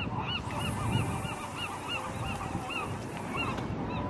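A rapid series of repeated animal calls, about three a second, slowing slightly and stopping near the end.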